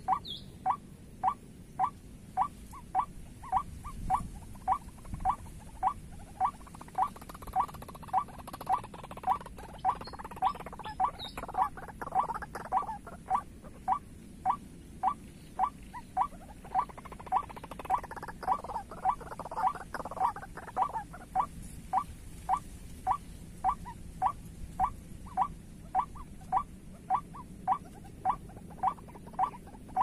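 White-breasted waterhen call repeated in a steady, unbroken series, about three calls every two seconds. It is the lure call used to draw waterhens into the snares.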